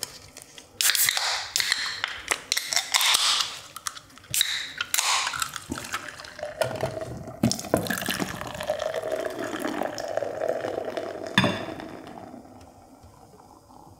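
A drink poured into a glass for several seconds, after clicks and rustles of handling; a sharp clack near the end.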